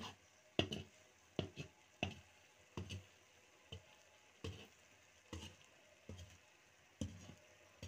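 A metal skimmer scraping and knocking against a cast-iron kazan as pasta plov is stirred, about ten short strokes at a little under one a second.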